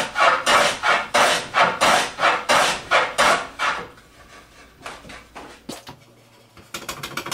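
Veritas block plane cutting a chamfer on the edge of a pallet-wood board with quick repeated scraping strokes, about three a second, which stop about four seconds in. A few faint scrapes follow, then a short run of light clicks near the end.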